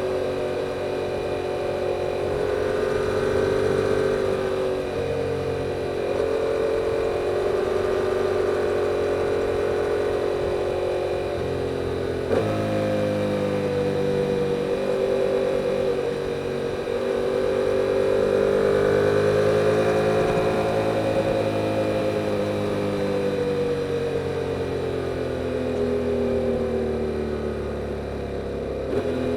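2022 Yamaha R7's 689 cc parallel-twin engine through its stock exhaust, running steadily under way, its pitch rising and falling gently. A sudden change in the engine note comes about twelve seconds in.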